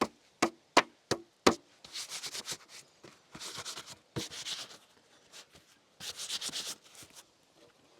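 Five sharp knocks in quick succession, then four short bursts of scratchy rubbing or scraping.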